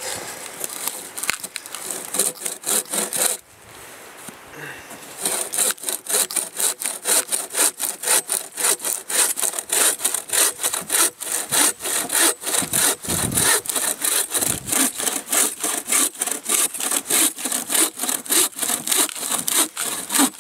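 Bow saw cutting through a log in quick, even back-and-forth strokes, with a short break of under two seconds about three and a half seconds in.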